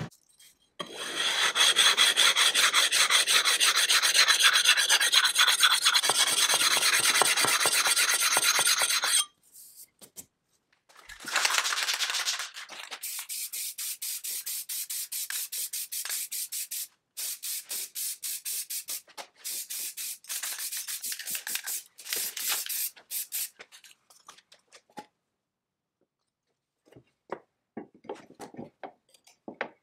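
About eight seconds of fast, loud scrubbing strokes. Then an aerosol can of clear coat sprays in a string of hissing bursts with short breaks between them. Near the end come a few light clicks of metal parts being handled.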